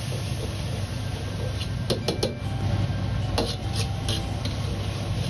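Steel wok ladle scraping and knocking against an iron wok as garlic and sauce are stir-fried slowly over low heat. A few short scrapes and clicks sit over a steady low hum.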